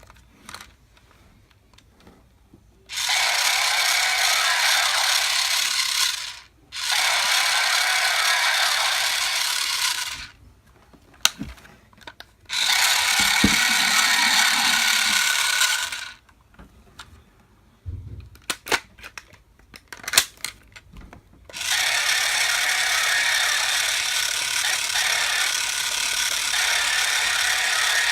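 Toy drill blade of a DX Drill Crusher spinning, a steady rattling whir that runs for a few seconds at a time, four times, with clicks of the toy being handled in the gaps between runs.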